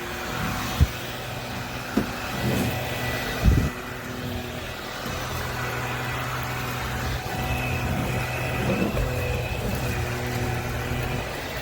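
Bissell PowerClean FurFinder cordless stick vacuum running with a steady motor hum, with a few sharp knocks in the first few seconds.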